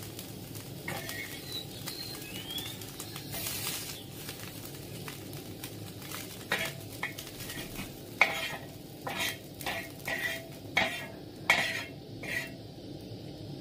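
Metal spatula scraping and knocking against a blackened wok as the fried small fish are lifted out at the end of frying, over the steady sizzle of the hot oil. The scrapes come thick and fast in the second half.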